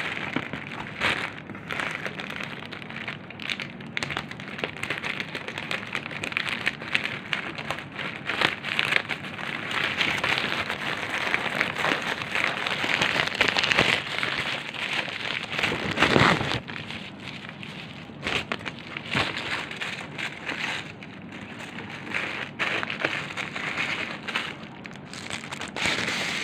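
Plastic wrapping and packaging crinkling and rustling as hands unwrap a wallet from its pouch, with a louder rustle about sixteen seconds in.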